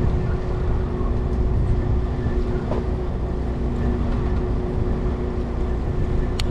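Boat's engine running steadily: a constant low hum over a rumble. One sharp click comes near the end.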